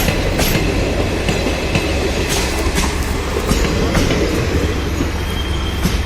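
Passenger train rolling past, its wheels clacking irregularly over rail joints and crossings above a steady low rumble. A faint thin squeal comes in near the end.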